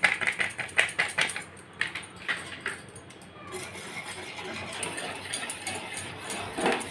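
A wire whisk clicks and clinks quickly against the sides of a stainless steel saucepan for about three seconds as milk powder is beaten into hot milk, then settles into a softer, steady swishing through the milk.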